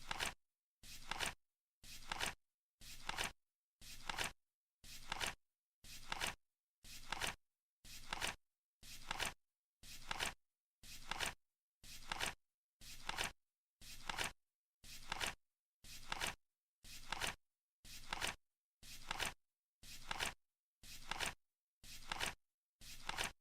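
Flip-clock timer flipping its card once a second, each flip a short, dry, clacking sound that peaks at its end. The flips come at an even, metronome-like pace.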